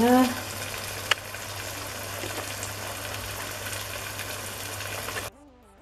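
Spinach chicken curry in a yogurt sauce simmering and sizzling in a pot on low heat: a steady hiss, with a single click about a second in. It cuts off suddenly near the end.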